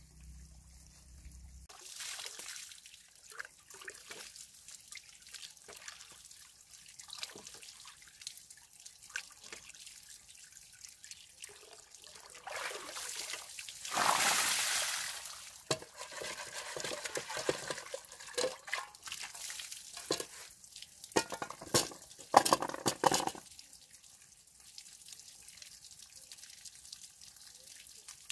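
Water poured from a metal cooking pot splashing onto a bamboo platform for about three seconds. Scattered sharp knocks and clatter follow, the sharpest a few seconds after the pour.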